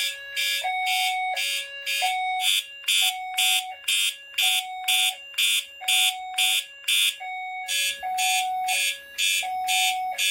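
Fire alarm notification appliances (a Siemens ZH-MC-R and an FCI-HE8F) sounding together on California Code, in alarm from the activated heat detector. A rapid pulsing horn sounds about two and a half blasts a second, with a short break about seven seconds in, over a steady two-tone hi-lo tone that swaps pitch about every three-quarters of a second.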